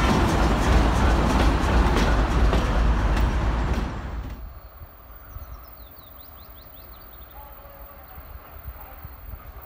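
ChME3 shunting diesel locomotive passing close by: a loud low engine rumble with sharp clicks from the wheels over the rails. About four seconds in it cuts to a much quieter outdoor background with a few birds chirping.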